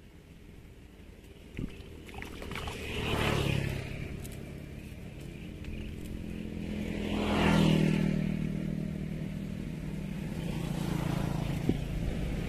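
Motor vehicles passing on a road: engine noise swells up and fades away twice, loudest about three and seven and a half seconds in. A single sharp click comes about a second and a half in.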